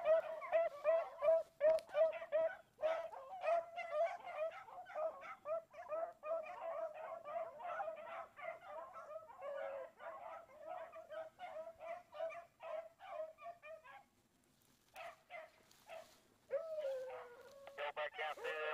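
A pack of rabbit hounds baying as they trail a rabbit's scent. It starts as fast continuous yelping, about three yelps a second, dies down to scattered yips about two-thirds of the way through, then picks up with a longer drawn-out bay near the end.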